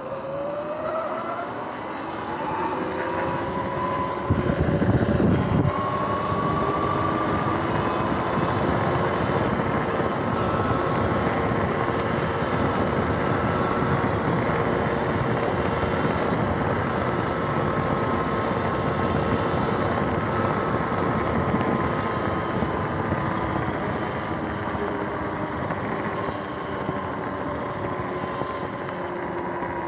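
Sur-Ron X electric dirt bike's motor whine and freshly replaced drive chain running as it pulls away, the whine rising in pitch over the first few seconds, holding steady at riding speed, then falling near the end as it slows. A steady rushing noise runs underneath, with a louder rush for about a second and a half around four seconds in.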